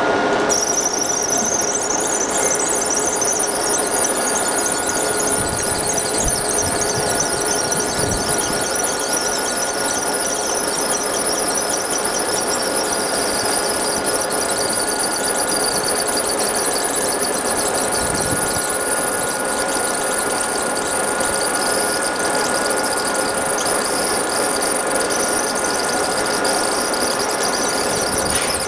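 A 20 W fiber laser engraving machine marking an aluminium drink can. It gives off a steady, high-pitched whine over a hiss, which comes in about half a second in and then holds unchanged.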